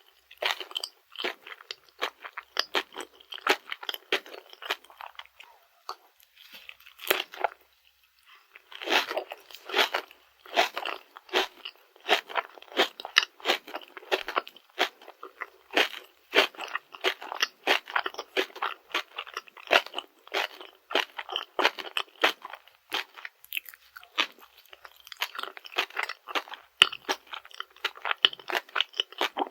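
Close-miked chewing of a Dubai-chocolate glutinous rice cake, its toasted kadaif-and-pistachio filling crunching in quick, dense crackles. The crunching eases off briefly about a quarter of the way in, then resumes.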